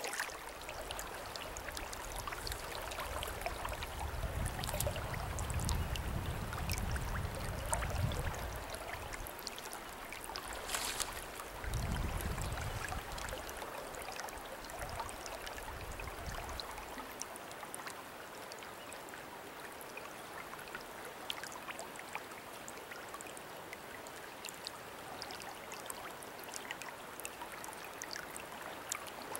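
River current flowing steadily, an even rush of moving water. A low rumble comes and goes under it for about the first half, then drops away.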